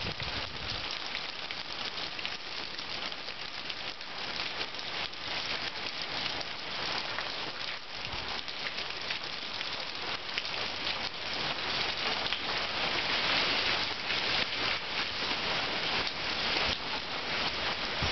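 Heavy rain pouring and splashing on surfaces: a dense, steady patter of drops that grows somewhat louder about two-thirds of the way through.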